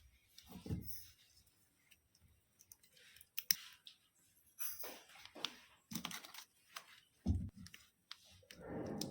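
Irregular handling noises: scattered clicks, knocks and scrapes, with a few tearing or cutting sounds and a longer scraping stretch near the end.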